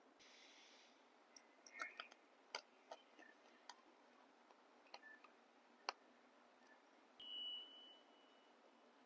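Faint scattered clicks and taps of small tools and parts being handled during laptop servicing, with a short hiss near the start and a thin high tone lasting about a second about seven seconds in.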